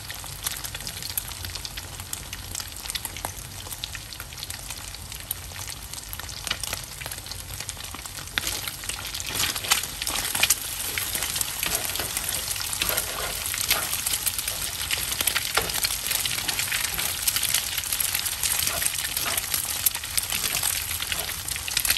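Eggs sizzling in hot cooking oil in a wok, with a steady crackle. From about halfway through, a spatula breaks up and stirs the eggs, scraping the pan, and the frying gets louder.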